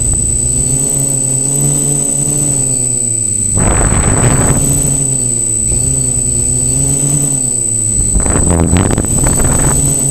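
Quadcopter's electric motors and propellers whining in a hover, the pitch wavering as the motors speed up and slow down. Two bursts of rushing wind noise hit the onboard microphone, about four and eight seconds in.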